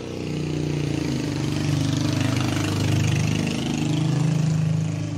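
A motor vehicle's engine running close by, getting louder over the first second and staying loud, with a steady low hum.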